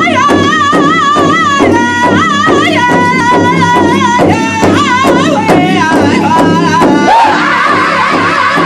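Powwow drum group singing an intertribal song around a big drum: a single high-pitched, wavering lead voice over a steady drumbeat. About seven seconds in, the rest of the singers join in together.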